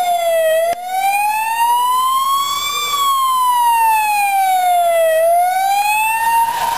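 Ambulance siren sounding a slow wail, its pitch rising and falling over about five seconds. Near the end the pitch levels out as the ambulance passes, and a hiss of tyres on the wet road comes in.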